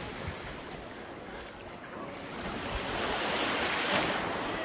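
Sea waves washing and lapping at the shore, with wind on the phone's microphone; the noise dips a little about a second in and swells again near the end.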